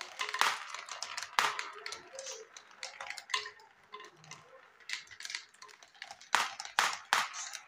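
A marble rolling and clattering through a marble run, from a wooden slope into plastic chutes and track pieces: an uneven string of clicks and taps, with several sharper knocks about six to seven seconds in.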